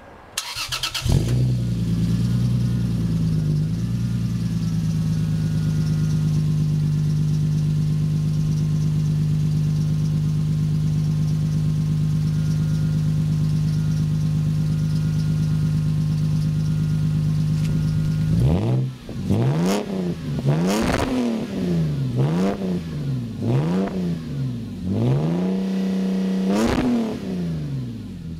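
Lexus IS300's inline-six started cold through a muffler-deleted exhaust (2.5-inch pipe to a 3.75-inch tip, resonator still in place), then settling into a steady high idle. About two-thirds of the way in, the engine is blipped about five times in quick succession and held briefly at higher revs before it drops back.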